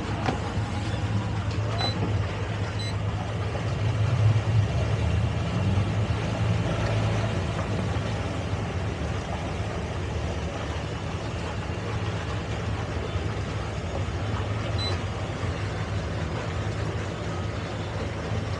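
Towboat's outboard engines running steadily at low speed while pushing a boat tied alongside, a low even hum that swells briefly about four seconds in.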